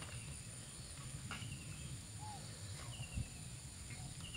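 Faint bird calls: a short, falling chirp repeated about every one and a half seconds over a low background rumble, with one soft thump about three seconds in.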